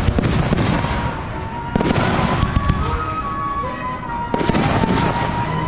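Aerial fireworks shells bursting, with two sharp bangs about two seconds and four and a half seconds in, each trailing off in a crackling rumble.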